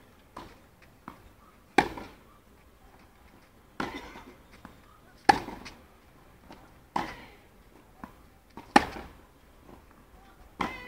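Tennis rally on clay: rackets strike the ball back and forth, six hits about 1.5 to 2 seconds apart, some louder than others. Fainter ticks between the hits are the ball bouncing on the court.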